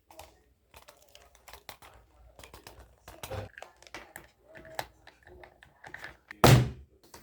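Handling of a phone filming kit's parts and plastic packaging: irregular clicks, taps and crinkles, with one loud thump about six and a half seconds in.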